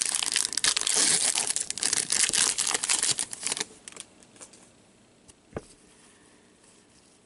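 The foil wrapper of a hockey card pack crinkles and tears as it is opened, for about three and a half seconds. Then it is much quieter, with a single click about five and a half seconds in.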